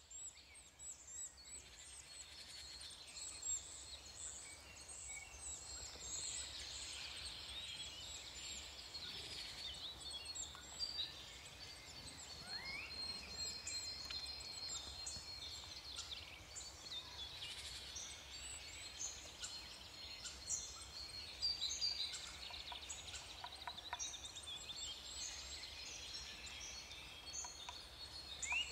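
Faint forest birdsong: many short chirps, trills and whistled calls from several birds overlapping, over a faint low rumble.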